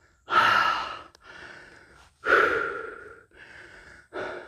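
A man breathing hard: two loud, airy exhales about two seconds apart, each fading away, with quieter breaths between. He is out of breath and overheated after the climb.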